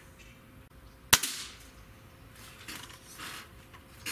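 A single shot from a Gamo Whisper Fusion Mach 1 .22 gas-piston breakbarrel air rifle about a second in: one sharp crack with a short ring-out.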